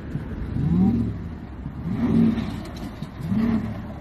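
A vehicle engine revving up and down over and over, with a swell about every second and a bit over a steady low running sound.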